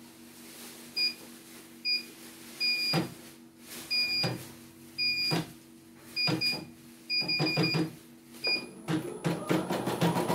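CNY E900 computerized embroidery machine beeping as its control-panel buttons are pressed: a string of short high beeps, some in quick runs, with light button clicks over a steady low hum. Near the end the machine starts stitching with a fast, even needle rhythm.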